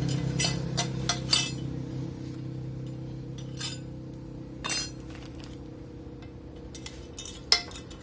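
Metal tools and fork parts clinking against each other, a few quick clinks at first, then scattered single ones, the loudest near the end.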